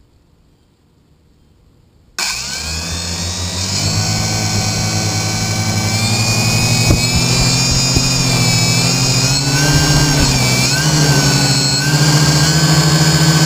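Y6 hexacopter's six brushless motors and propellers starting up suddenly about two seconds in and spinning with a steady whine. The whine swells over the next couple of seconds and shifts in pitch with the throttle a few seconds before the end, heard through a GoPro hard-mounted on the frame.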